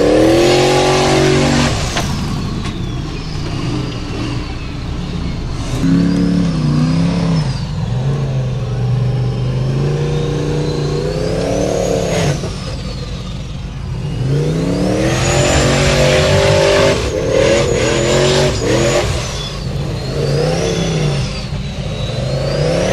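Formula offroad buggy's engine revving hard in about half a dozen separate bursts, the pitch climbing and falling with each, while its wheels spin in loose dirt on a steep climb. A high whine rises and falls along with the revs.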